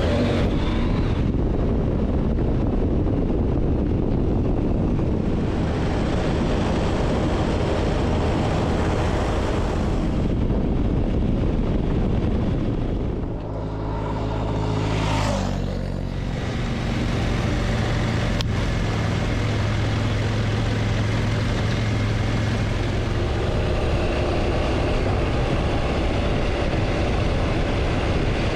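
Motorcycle engine running while under way, with heavy wind rush. A little past halfway the level dips briefly and the engine note rises, then it settles into a steady low hum.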